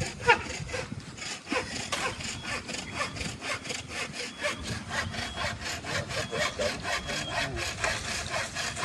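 Hand saw cutting with quick, even back-and-forth strokes, with one sharp knock just after the start.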